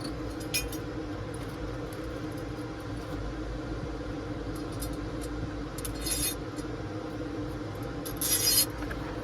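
Small metal clinks and scrapes as a steel flat washer and riser clamp parts are handled and fitted onto threaded rod. There is a faint clink about half a second in, a short jingle about six seconds in and a louder one near the end, over a steady low hum.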